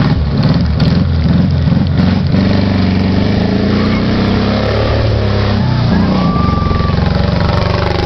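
Air-cooled VW Beetle (Fusca) flat-four engine of a homemade dune buggy running under load, revving up and down as the buggy drives through a puddle and passes close by.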